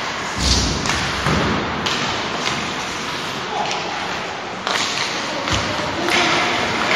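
Ice hockey play on a rink: several sharp knocks and thuds of sticks, puck and boards over a steady scraping hiss of skates on the ice.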